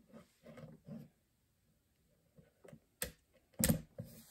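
Clicks and knocks of plastic Lego pieces being handled and pressed into place on a table: a few small clicks, then two louder knocks about three seconds in and half a second later. A brief low vocal sound from the builder comes right at the start.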